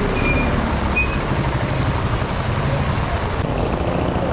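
Torrential rain pouring onto a street, a steady loud hiss, with the low hum of a motorcycle tricycle engine close by. The top of the hiss turns duller about three seconds in.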